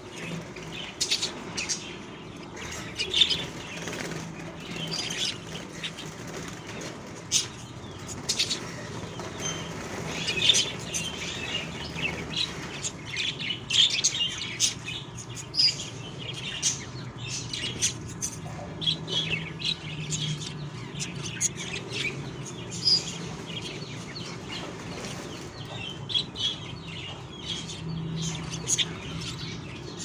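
Budgerigar chicks in a nest pot making irregular short scratchy rustles and chirps as they shuffle and flutter about on the bedding, over a steady low hum.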